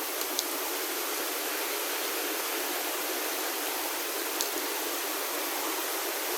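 Mountain creek rushing steadily over rocks, with a few small clicks near the start and about four seconds in.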